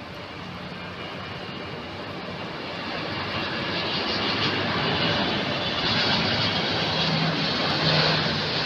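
Jet airliner's engines roaring, growing steadily louder as the aircraft approaches.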